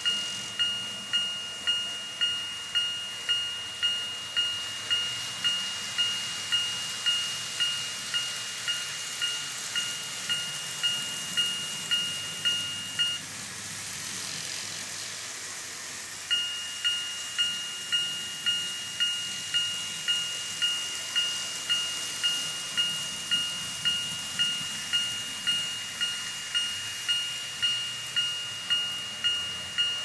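Electronic warning bell of a TOMIX 5555 TCS automatic level-crossing set for N-gauge model railways, ringing in a steady ding-ding of about one and a half strikes a second. It stops for about three seconds partway through, leaving a low hiss, then starts ringing again and stops right at the end.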